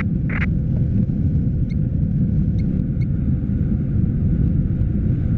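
Steady low rush of airflow buffeting the microphone of a camera mounted on a hang glider in flight, with a few faint short high chirps in it.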